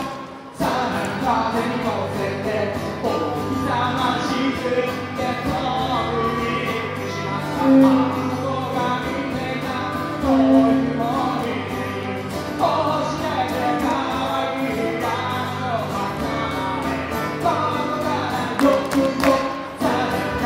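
An Irish folk band playing live, with a fiddle carrying a lively tune over a steady lower accompaniment. The music breaks off for a moment at the very start, then picks up and runs on without a pause.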